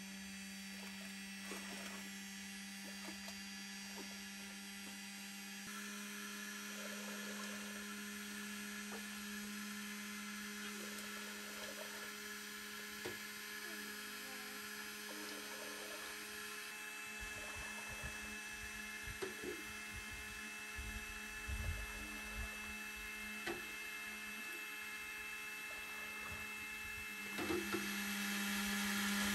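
Electric cream separator's motor humming steadily, louder near the end, while milk is ladled and poured through a mesh sieve into its supply bowl, with scattered small knocks and splashes.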